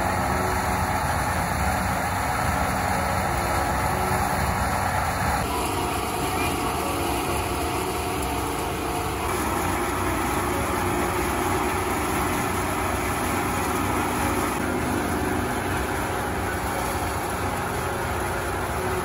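Tractor-driven paddy threshing machine running steadily: a dense mechanical drone from the engine and the spinning threshing drum.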